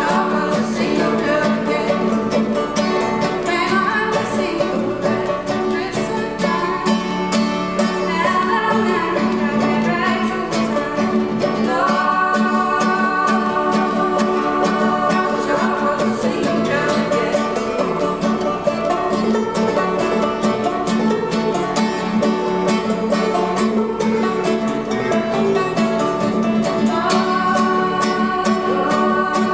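Old-time song played live on clawhammer banjo and acoustic guitar, with singing.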